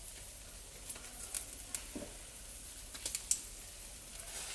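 Meat, sausage and sardines cooking on a charcoal grill: a faint sizzle broken by scattered, irregular crackles and pops.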